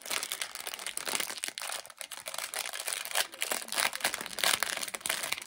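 Small clear plastic bag crinkling as hands handle it and open it, a dense run of crackles throughout.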